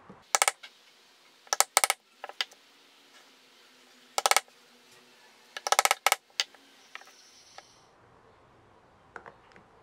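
Sharp, ringing metallic clinks in irregular clusters: a steel pick and then needle-nose pliers tapping and catching on a small metal part inside the slot of a wooden chamfer plane (kanna).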